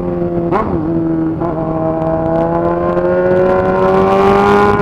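Honda Hornet's inline-four engine pulling through a straight-piped exhaust (only a 3-inch pipe, no muffler), its note rising slowly and steadily as the bike accelerates, with a brief break about half a second in.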